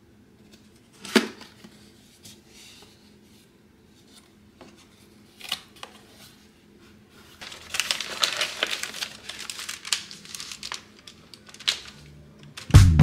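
Cardboard box being opened by hand: a sharp snap about a second in, a few lighter clicks, then a stretch of crinkling and rustling as the planner in its wrapper is lifted out. Music starts just at the end.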